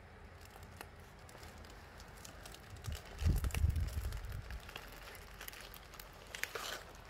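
Clear plastic wrap on a rolled sheet of motorcycle decals crinkling and crackling as it is unrolled and pressed flat by hand, with a dull thump about three seconds in.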